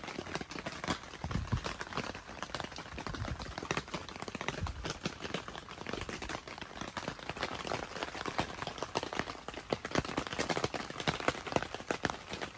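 Rain pattering on a tent's fabric shell: a dense, irregular stream of small taps, with a few low thumps in the first few seconds.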